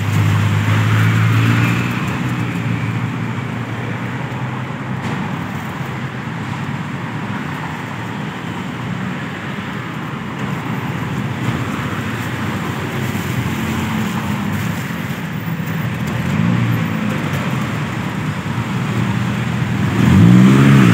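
Road traffic: vehicle engines running and cars passing in a steady wash of noise, growing louder near the end.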